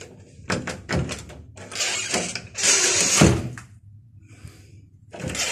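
Lever handle and latch of a steel-plated fire exit door being worked, its strike freshly adjusted so the latch dead-latches. There are several quick latch clicks about half a second to a second in, then two rushes of noise and a heavy thump of the door a little past three seconds in.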